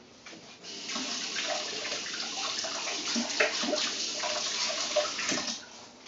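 A water tap running while hands are washed under it in a sink, with splashing. It starts about a second in and stops near the end.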